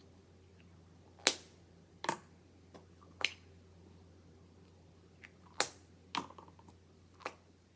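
Handling noise: about six sharp clicks and taps, irregularly spaced, as small objects and plastic packaging are picked up and set down on a tabletop.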